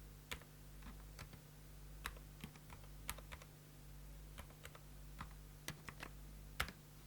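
Typing on a HATOR Rockfall 2 Mecha TKL mechanical keyboard with lubricated HATOR Aurum Milky Way Silent linear switches. The keystrokes are quiet and irregular, a few a second, over a steady low hum.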